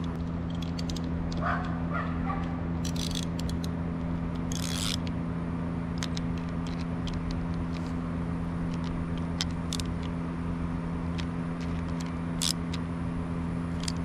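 Light clicks and a couple of short scrapes from small metal injector parts and hand tools being handled, over a steady low hum.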